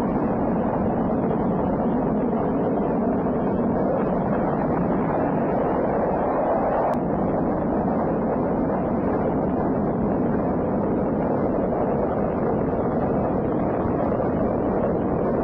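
Saturn V rocket's five F-1 first-stage engines firing at liftoff: a steady, dense rumbling noise with no breaks.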